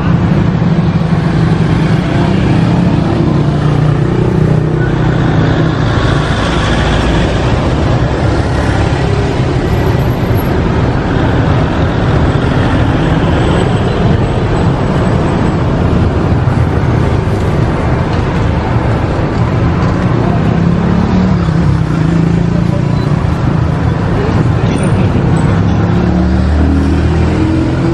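Street traffic: motor vehicles running past, a loud, steady low rumble.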